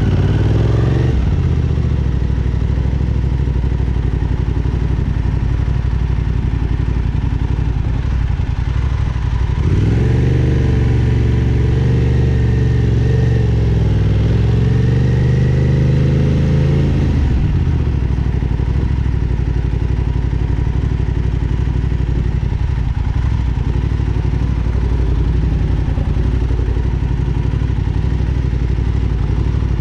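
Aprilia sport bike's engine running at low revs while rolling slowly at walking pace. Between about ten and seventeen seconds in, the throttle is opened a little and the pitch rises and wavers before it settles back.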